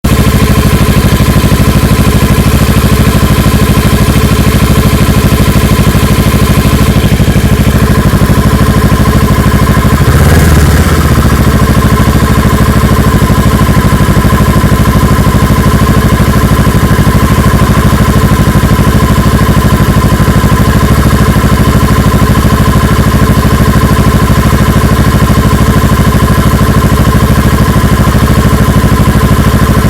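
Kawasaki Ninja 650R's parallel-twin engine idling, with one short rev about ten seconds in. The idle wobbles after the rev, which the owner asks about as a possible rough idle.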